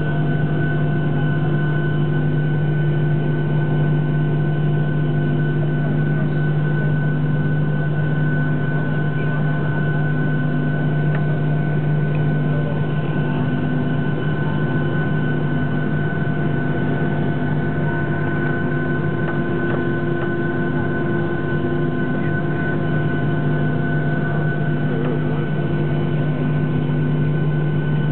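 Steady cabin drone of a Boeing 737-800 taxiing with its CFM56 engines at idle: a strong low hum under a few thin, steady whining tones, unchanging throughout.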